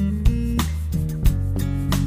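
Background music: a guitar-led instrumental with held chords and a steady beat.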